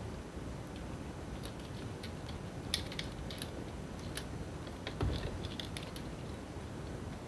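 Scattered small clicks and taps of fingers and a pick handling a laptop's flex ribbon cable and CMOS coin-cell battery, with a sharper click nearly three seconds in and a dull knock about five seconds in.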